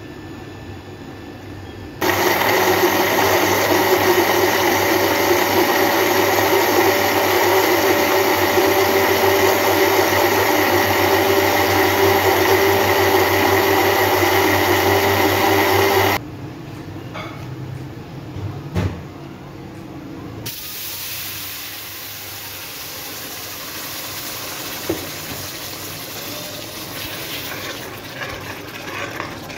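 Electric blender grinding tomatoes, onions, garlic, ginger and yogurt into a paste: a steady motor whine that starts about two seconds in and stops abruptly about fourteen seconds later. After a few knocks, the ground paste sizzles in hot oil in a steel pan.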